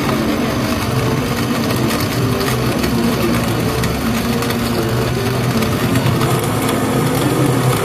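Electric blender running steadily, its motor churning seized crystal methamphetamine samples in floor-cleaning liquid to destroy them.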